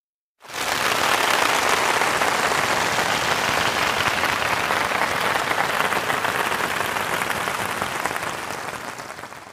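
Applause from a crowd: dense, steady clapping that starts suddenly about half a second in and fades out near the end.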